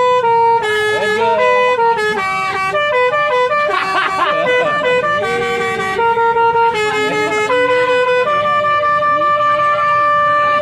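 Bus 'telolet' musical horn (Basuri type) playing its signature melody: a run of horn notes stepping up and down, ending on one long held note near the end.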